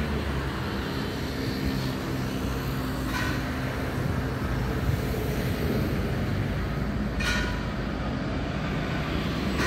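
Alstom Regio Citadis tram approaching along the track below, a steady low rumble with a faint hum. Two short higher-pitched bursts come about three and seven seconds in.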